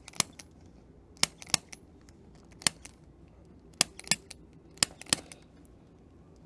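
A string of sharp clicks during a chiropractic adjustment, several coming in quick pairs about a third of a second apart.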